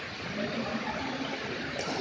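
Steady hiss of background noise in a badminton hall, with faint voices and a single sharp tap near the end from a racket striking the shuttlecock.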